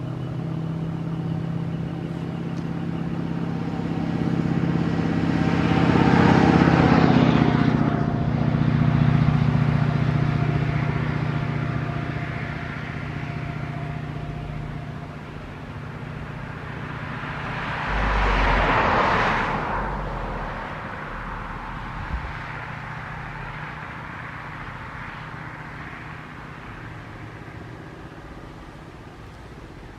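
Two road vehicles passing by, one rising to its peak about six to nine seconds in and a second, shorter one about nineteen seconds in, over a steady low hum that slowly fades.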